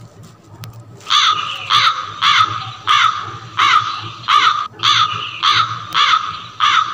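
A bird's harsh cawing calls, repeated about ten times at a little under two a second, starting about a second in.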